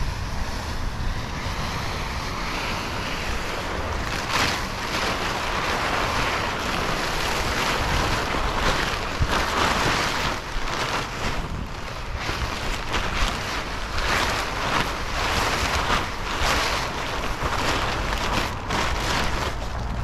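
Large blue plastic tarp rustling and crackling as it is unfolded and pulled out across asphalt, over wind noise on the microphone.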